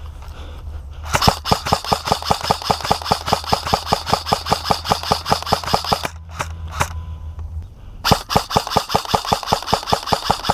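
Airsoft electric rifle firing close by in long full-auto strings of about eight shots a second: one string of about five seconds, two single shots, then another string near the end.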